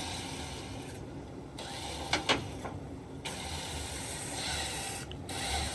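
Tow hook or chain being hooked onto the car, with two sharp metal clicks in quick succession about two seconds in, over a steady background noise.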